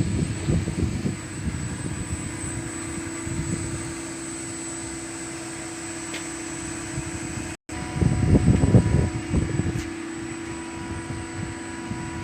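Steady machinery hum from HVAC plant equipment such as a chiller and its pumps, with a held droning tone. Louder irregular rumbles come near the start and again just after a brief drop to silence a little past halfway.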